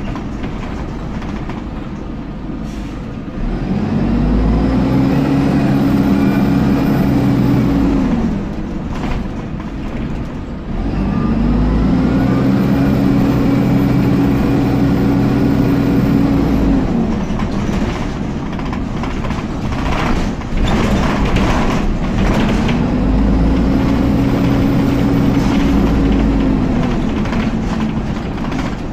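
Dennis Dart SLF bus cooling fan heard from inside the saloon, cutting in three times over the bus's running and road noise. Each time it winds up quickly to a steady drone with a high whine on top, holds for about four to five seconds, then winds down.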